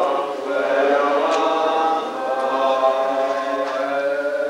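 A congregation singing a liturgical prayer chant together in unison, many voices on slow held notes.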